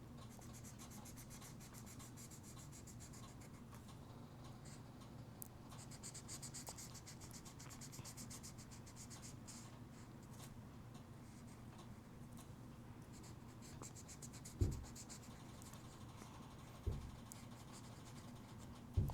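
Rapid back-and-forth scribbling of a coloring tool on paper, filling in a large area, in spells with short pauses between them. Two dull thumps near the end.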